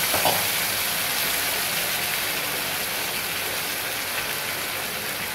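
Steady sizzling hiss of okra simmering in tamarind water in a pan on a gas stove, easing off a little over the seconds.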